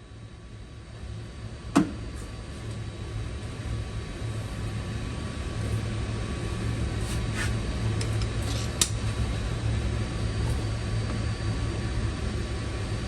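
A steady low mechanical hum that slowly grows a little louder, with a few sharp clicks: one about two seconds in and two close together between seven and nine seconds in.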